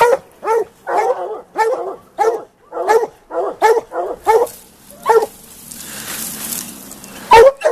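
Plott hounds barking at a mountain lion treed above them, short barks coming about one or two a second: hounds barking treed, the sign that the cat is held up the tree. A stretch of rushing noise breaks in between the barks a little after five seconds in.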